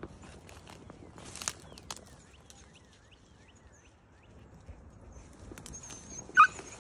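A hunting beagle gives one short, loud bark near the end, over faint rustling and small clicks.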